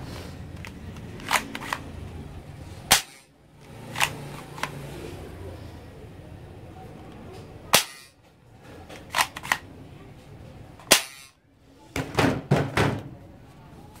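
Plastic toy guns giving a string of sharp snaps and clacks, the three loudest a few seconds apart, then a quick run of clicks near the end.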